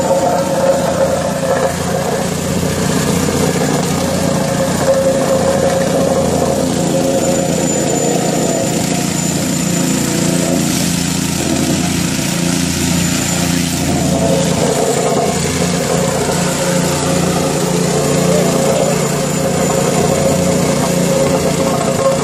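Small petrol-engined vibratory plate compactor running steadily as it tamps a fresh asphalt patch into a pothole.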